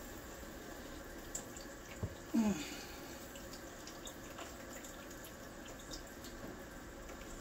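Faint steady hiss with a few soft knocks as pieces of bread dough are pulled off and set on a plate on a kitchen scale, and a short falling hum from a person's voice about two seconds in.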